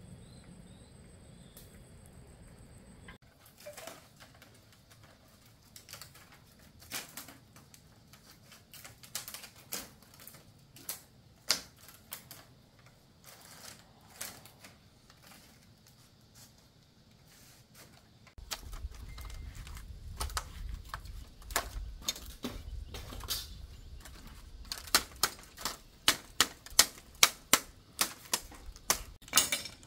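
Irregular sharp knocks and clicks, coming more often and louder near the end at about two a second, with a low rumble joining about halfway through.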